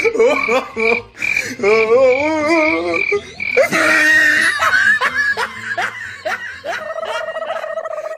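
A cat close to the microphone giving long, wavering, warbling yowls. A high beep repeats about twice a second behind it for the first few seconds.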